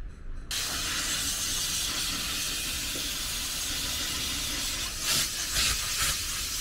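Steam cleaner blasting steam into a car's interior: a steady hiss that starts abruptly about half a second in, with a few brief louder spurts near the end.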